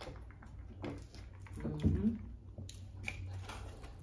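Chewing and wet mouth noises from people eating pizza, with small clicks throughout and a short hum-like vocal sound about two seconds in, over a low steady hum.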